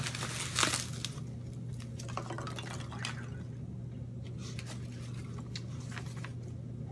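Foam packing peanuts rustling as hands dig through a cardboard box and toss them out. A burst of rustling comes about half a second in, followed by scattered lighter rustles and taps, and a sheet of paper is handled near the end. A steady low hum runs underneath.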